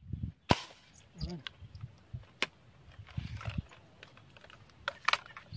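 Handling noise: a few sharp clicks, the loudest about half a second in and two more close together near the end, among soft low thumps and rustles.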